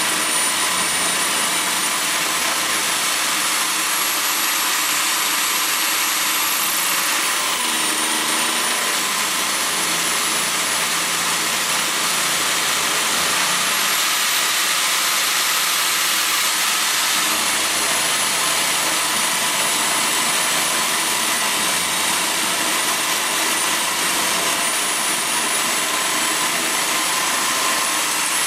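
Electric drill motor of an ER20 collet milling fixture running an end mill through aluminium bar. A steady, loud, high motor whine mixes with cutting noise, and the whine's pitch wavers down and back up a few times as the cut goes on.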